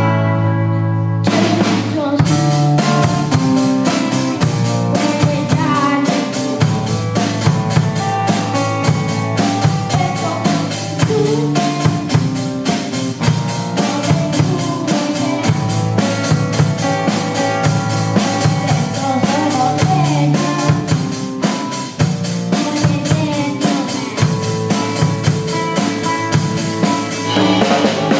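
A small band playing live on electric bass, acoustic guitar and drum kit. The guitar and bass sound alone at first; the drum kit comes in about two seconds in and keeps a steady beat of snare, bass drum and cymbals under them.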